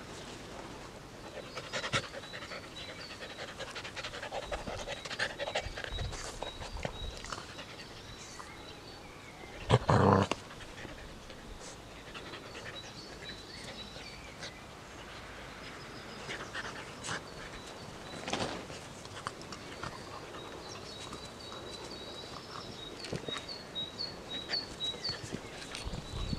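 Bernese mountain dog puppy panting. Small birds chirp in short, high, repeated notes in the background. There is one short loud noise about ten seconds in.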